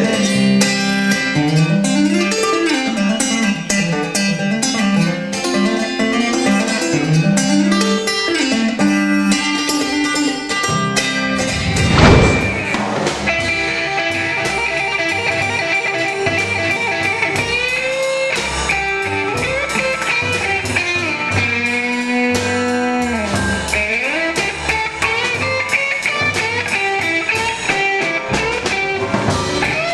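Live guitar music with no singing: a guitar picks a melodic run. About twelve seconds in there is a loud thump, and then a guitar solo with bent notes plays over a bass line.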